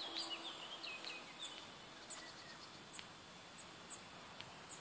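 Faint outdoor ambience with birds chirping and warbling, busiest in the first second or so, and thin high ticks repeating every half second or so.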